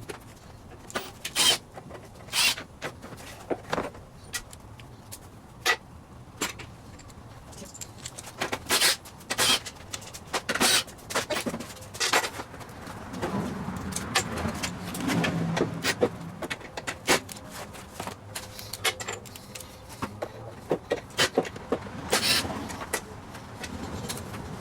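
Irregular metallic clicks, clinks and knocks of hand tools taking apart a walk-behind push mower's recoil starter housing, with a low rumble of the mower being shifted around midway.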